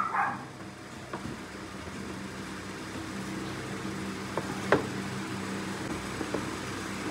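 Light plastic clicks and taps as thin plastic divider panels are slotted into a clear multi-compartment plastic dry-food dispenser: a few scattered clicks, the sharpest just before the five-second mark, over a steady low hum.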